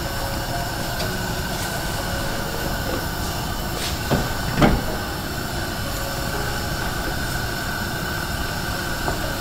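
Saucepan of anchovy and vegetable broth at a hard rolling boil on a gas burner, a steady rushing bubble. About four seconds in, the glass pot lid clinks twice as it is lifted off.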